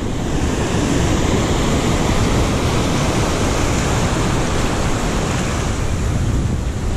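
Ocean surf washing over rocks and churning as whitewater: a steady rush of noise.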